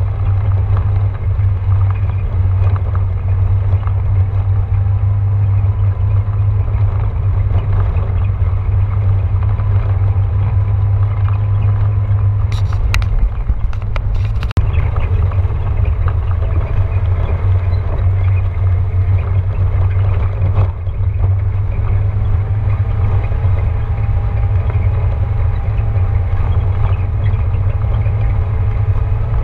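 Off-road vehicle driving up a gravel dirt road, heard from inside the cabin: engine and tyres make a steady low rumble, with a few sharp knocks about halfway through.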